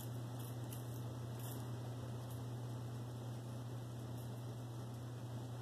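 A steady low hum runs throughout, with a few faint soft ticks and rustles in the first second and a half and once more a little later, as a cat bats at a feather wand toy on carpet.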